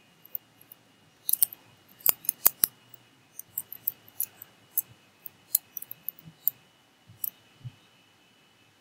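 Computer keyboard typing: an irregular run of sharp key clicks that stops near the end, over a faint steady high whine.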